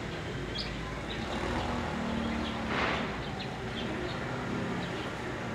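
Outdoor background noise: a steady low rumble with scattered faint, short high chirps, and a brief hiss swelling and fading near the middle.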